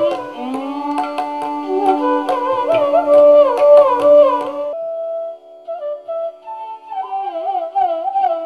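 Instrumental background music: a melody with slides and turns over a held low note, with drum strokes that stop a little past halfway, leaving the melody alone.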